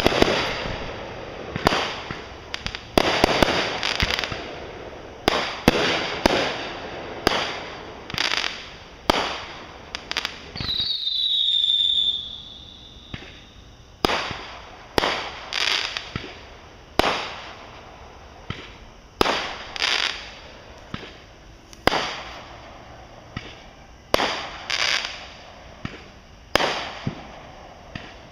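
Fireworks going off in a steady run of sharp bangs, roughly one a second, each trailing off in an echoing rumble. About eleven seconds in, a whistling firework gives a high whistle that drops in pitch over a second or so.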